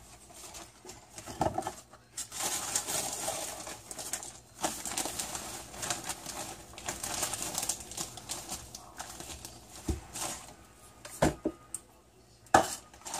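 A plastic bag of brown sugar crinkles and rustles as it is opened and handled, with a few sharp knocks near the end as a plastic measuring cup is picked up and handled.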